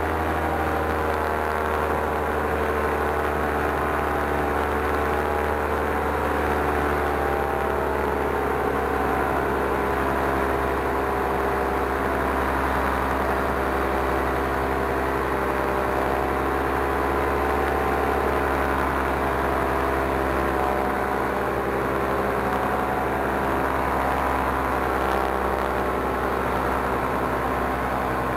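Paramotor engine and propeller running steadily, its pitch wavering slightly as the throttle shifts.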